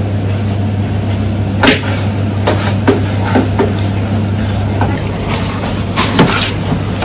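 A metal utensil knocking and scraping against the stainless-steel pan of a Rational VarioCookingCenter as spice paste is stirred while it sautés. It makes about eight sharp knocks, two close together near the end, over a steady low hum.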